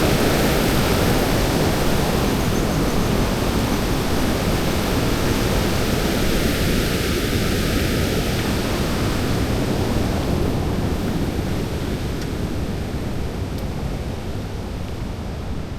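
A steady rushing noise that slowly fades.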